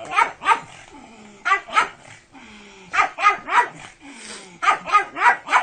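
A dog barking repeatedly in quick clusters of two to four barks, with short pauses between the clusters.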